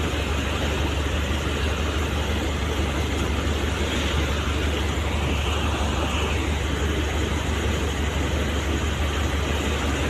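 Fast floodwater pouring over a weir and churning below it: a steady, unbroken rush of water, with a low steady hum underneath.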